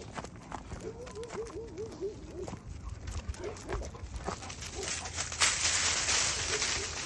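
A dog giving a quick run of short, high whines, about five a second, with a few more here and there. From about five seconds in a louder rushing noise covers them.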